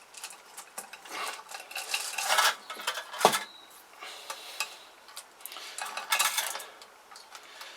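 Metal clinking, scraping and rattling as a magnetic pickup tool fishes for the cam chain inside a partly assembled motorcycle engine, with one sharp metallic knock about three seconds in.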